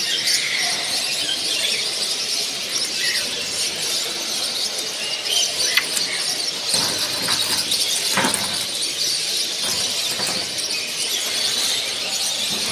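Dense, high-pitched chorus of many caged birds chirping and calling at once, steady throughout, with a few sharper individual calls standing out about six and eight seconds in.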